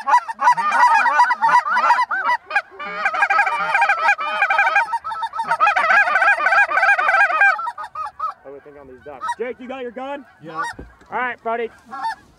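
A large flock of lesser Canada geese calling overhead, many high yelping honks overlapping. About eight seconds in the chorus thins to a few scattered, lower honks.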